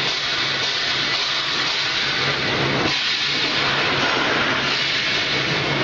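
Brush roller vegetable washing machine running: a steady machine hum under a constant hiss.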